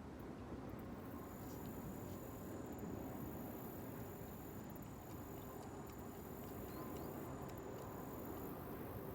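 Faint steady outdoor background noise with a thin, high, steady whine that starts about a second in and stops near the end, and a few light ticks.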